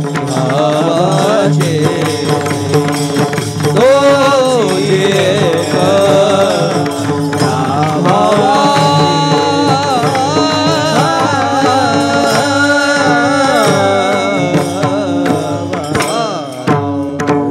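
Marathi devotional kirtan music: a melodic line sung over strokes of a mridang (double-headed barrel drum) and ringing tal hand cymbals, with a steady held note underneath.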